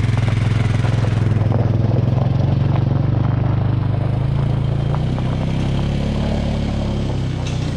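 Side-by-side UTV engine driving off while towing an empty homemade log arch, the engine note rising as it speeds up and then slowly fading as it moves away, with a few light clanks from the towed arch.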